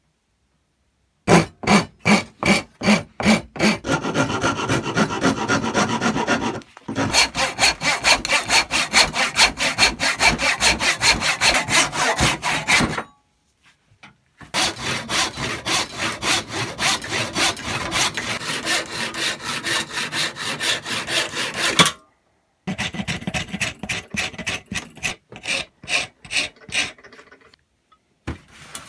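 A wooden plane handle being shaped with a rasp, in rapid back-and-forth strokes of about three a second. The strokes pause briefly twice and are lighter near the end.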